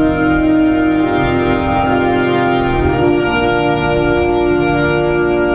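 Organ music playing slow, held chords that change every second or two.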